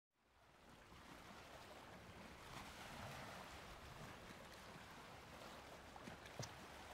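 Faint seaside ambience fading in: an even hiss of wind and water at the shore. Near the end, a couple of footsteps on hard ground.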